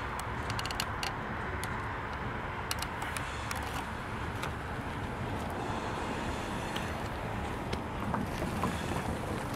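Diesel freight locomotive rumbling steadily at low speed or idle. A few sharp clicks come in the first three seconds.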